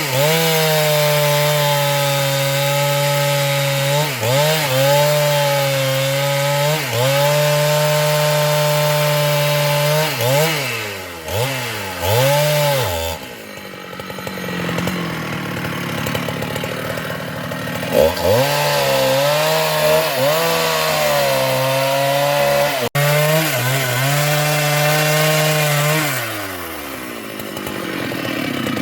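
Large two-stroke Husqvarna chainsaw at full throttle cutting through sengon (albizia) wood. The engine note dips and swoops back up several times as the throttle is eased. It falls back for several seconds about halfway through, then runs at full cutting speed again before easing off near the end.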